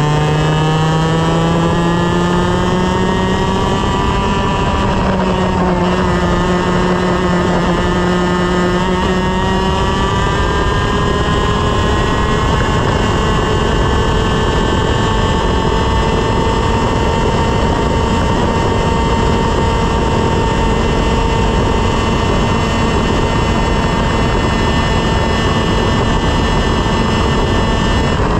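125cc two-stroke TaG racing kart engine at full throttle, its pitch climbing as the kart accelerates, with a brief dip about five seconds in, then holding steady near top revs for the rest of the stretch.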